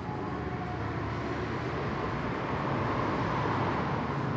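Steady background rumble with a low hum, swelling a little about three seconds in and easing off again.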